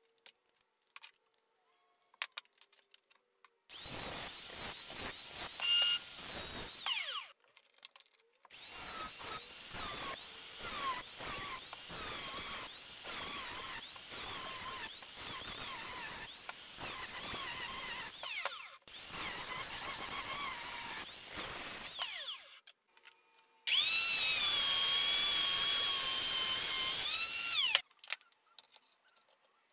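Angle grinder with a cut-off disc cutting into a steel CV axle shaft, run in four stretches of a few seconds each with a high whine that wavers in pitch.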